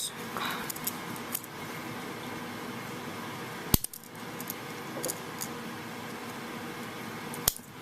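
Victorinox Swiss Army knife being worked by hand as someone tries to pry a tool open with short fingernails: two sharp metal clicks, one near the middle and one near the end, over a steady low hiss.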